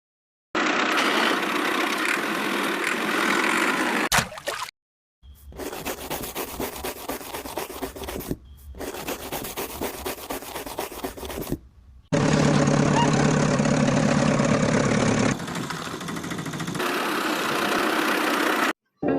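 Small toy RC tractor running: its electric motor and gears whirring, in several short clips separated by abrupt cuts to silence.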